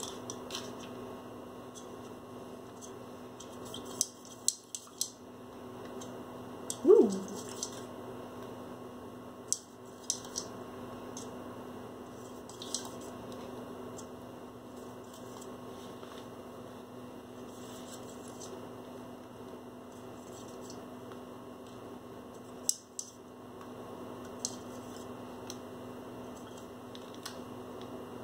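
Steady hum with scattered light clicks and taps as a paintbrush is dipped in paint cups and flicked to splatter paint onto paper. About seven seconds in, a brief falling pitched squeak is the loudest sound.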